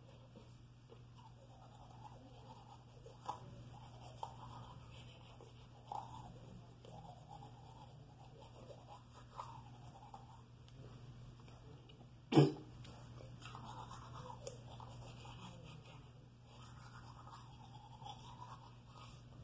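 Teeth being brushed with a manual toothbrush: faint, irregular scrubbing, with one sharp knock about twelve seconds in.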